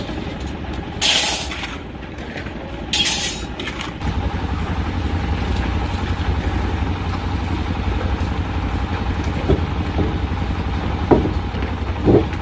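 Concrete mixer engine running steadily, louder after about four seconds. Before that come two short scraping noises, shovels on gravel and stone, and near the end a few short knocks.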